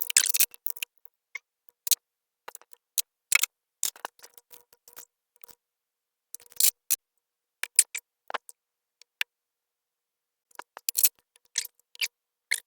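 Hand tools and engine-bay parts clicking and clattering in irregular, scattered sharp knocks, some with a faint metallic ring, as components are being unfastened and removed.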